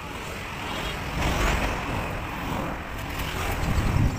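Street traffic: cars and motorbikes driving past close by, a steady road noise that swells about a second in and again near the end as a car goes by.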